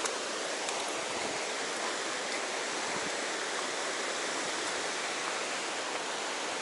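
Fast-flowing river running over rocks with white water: a steady, even rush of water.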